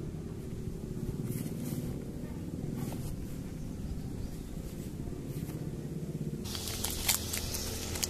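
Clear plastic wrap crinkling and crackling as it is peeled off a set of new disc brake pads, starting about two-thirds of the way in. Before that there are a few light taps from a cardboard pad box being handled, over a steady low background rumble.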